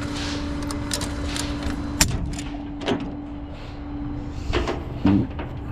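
Steady low hum of an idling vehicle with one constant tone, under scattered short clicks and knocks, the sharpest about two seconds in.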